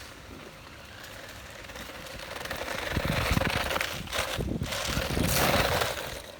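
Soyee 1:10 scale 4x4 electric RC truck driving, its tyres and drivetrain making a rattling noise that swells in, dips briefly about midway, and fades away near the end.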